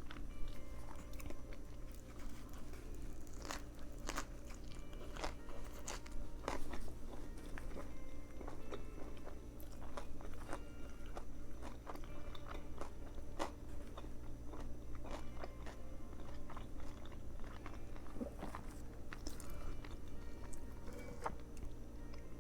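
Close-up sounds of a person biting and chewing a Subway veggie patty footlong sandwich: many short crunches and wet clicks, over a steady low hum.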